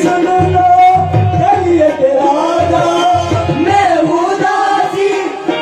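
Qawwali music: a harmonium melody with a hand drum beating under it and a male voice singing.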